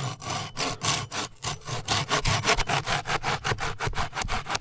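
Hand saw cutting through a branch for firewood: quick, even rasping strokes that start abruptly and keep a steady rhythm.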